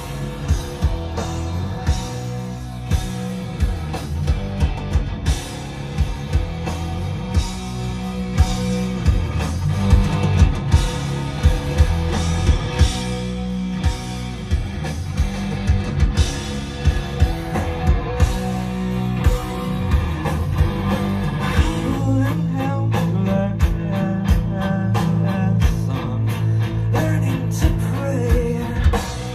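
Rock band playing a song live: electric guitar over bass and a drum kit keeping a steady beat.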